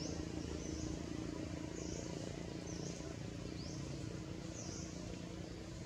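Forest ambience: an even hiss and a steady low hum, with about six short, high chirps sweeping in pitch at roughly one-second intervals.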